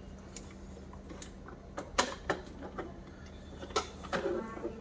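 Scattered light clicks and knocks of hard plastic being handled as the yellow top housing of a Kärcher WD6 Premium wet-and-dry vacuum cleaner is lifted and its wiring is worked on, the sharpest knock about two seconds in.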